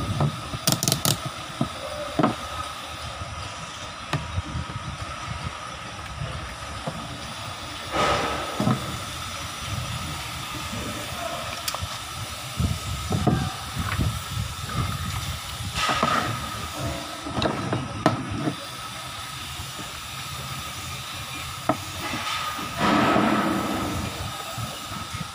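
A steady hiss with a faint high whine, broken by a few knocks and rubs from handling an angle grinder and plugging it in. The grinder motor is not yet running.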